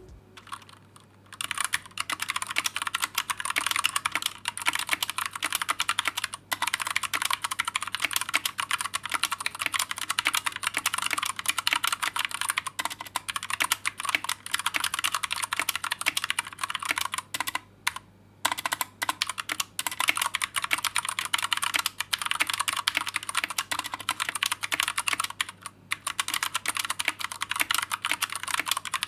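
Continuous typing on a modded Pressplay Apollo61 mechanical keyboard with cheap black keycaps, its spacebar stabilizer Holee-modded and foam added in the case. Fast, dense key clicks start about a second and a half in and run on with brief pauses, one around six seconds in and a longer one around seventeen to eighteen seconds.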